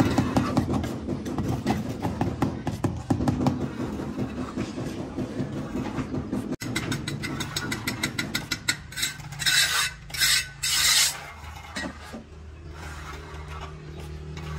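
Rapid scraping strokes of a tool against a hard surface, several a second. About two-thirds through come three longer, louder scrapes, and a low steady hum remains near the end.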